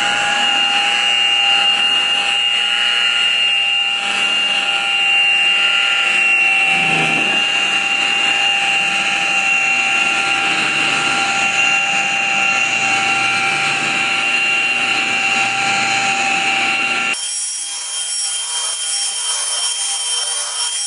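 Variable-speed car polishing buffer running steadily with its pad against a car's paint: a steady whine over a rubbing hiss. Near the end the rubbing suddenly drops away and the whine shifts pitch.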